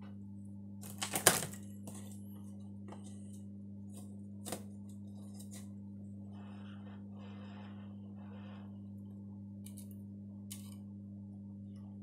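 Clicks and clatter of tools and cables being handled on an electronics repair bench: a quick cluster of clicks about a second in, a single sharper click a few seconds later and a faint one near the end, over a steady low hum.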